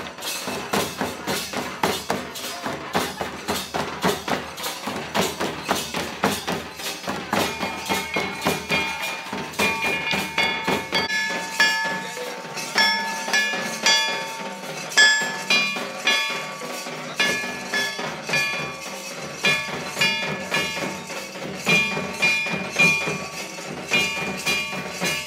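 Festival drums, including a large kettle drum struck with sticks, beaten in a fast, dense rhythm, with a melody of short held high notes over the beat.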